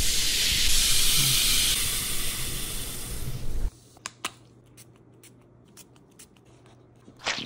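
Effervescent skincare tablets fizzing in a bowl after water is squirted onto them: a loud, steady hiss that cuts off about three and a half seconds in. Quiet follows with a few small clicks and a short spray-bottle squirt near the end.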